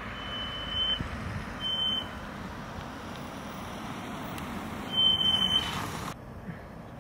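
Night-time street ambience: a steady hiss and low rumble of traffic, broken three times by a steady high beep, each under a second long, the last and loudest about five seconds in. The ambience cuts off abruptly about six seconds in.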